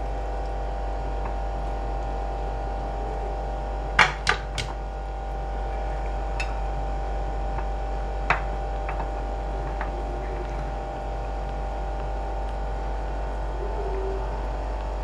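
Steady electrical hum, with a quick cluster of sharp clicks about four seconds in and one more near eight seconds: a steel colander and hands knocking against a glass bowl as raw chicken wings are tipped into seasoned flour and turned to coat.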